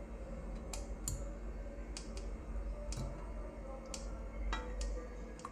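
A spatula clicking and scraping against the inside of a wok as saucy food is pushed out into a bowl: about nine short, sharp ticks, irregularly spaced, over a low steady hum.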